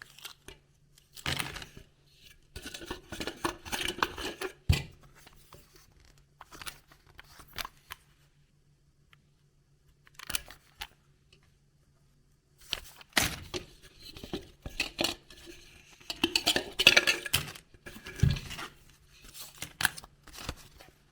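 Hands unwrapping and opening toy surprise eggs: bursts of tearing, crinkling wrapper and small plastic clicks and clinks, with a few pauses between, over a faint steady hum.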